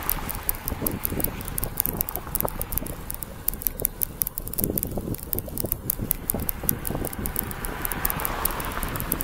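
Bicycle riding noise: rapid, irregular ticking over a low rumble, with a rushing swell near the end.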